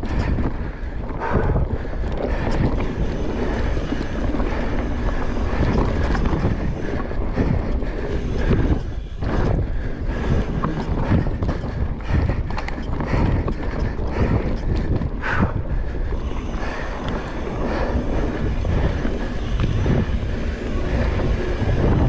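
Mountain bike ridden fast over a dirt trail: tyres rumbling on the ground and the bike rattling with many small knocks over bumps, with wind buffeting the microphone.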